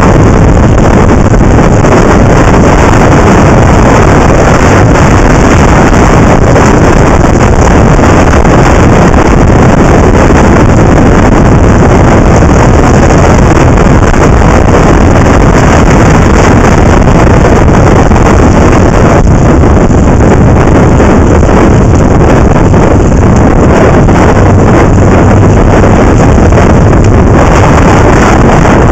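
Loud, steady wind rushing over the microphone of a camera mounted on a moving motorcycle, mixed with the motorcycle's own riding noise.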